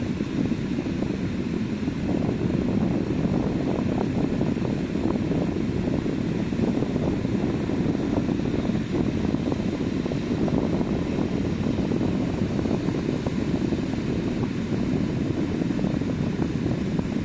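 Sea surf washing onto a beach: a steady, low rushing noise with no distinct breaks.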